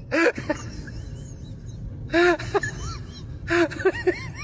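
Comedy sound effect of short hoots that rise and fall in pitch, coming in a few quick groups, each opening with a breathy rush.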